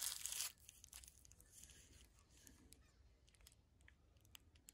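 Brief crinkling rustle of plastic bubble wrap being handled, lasting about half a second at the start, followed by faint scattered small clicks.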